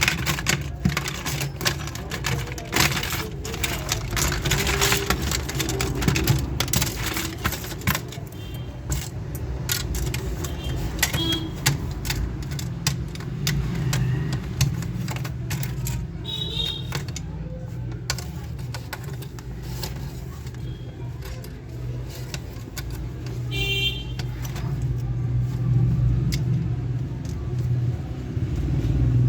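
Rattling and clicking of small hard parts being handled, thickest in the first eight seconds, over a steady low hum. Two brief high chirps come about 16 and 24 seconds in.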